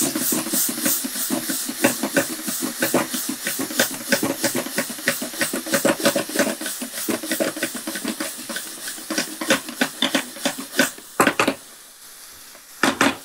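Cauliflower with onion, tomato and spices sizzling in a frying pan while being tossed and stirred, a fast clatter of stirring strokes over the hiss of frying. The stirring stops about eleven seconds in, leaving a fainter sizzle broken by two louder knocks.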